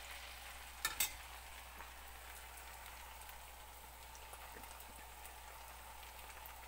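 Murukku deep-frying in hot oil in a kadai, a steady sizzle of bubbling oil. The bubbling shows it is still cooking, since it is ready once the bubbles stop. Two sharp clicks sound about a second in.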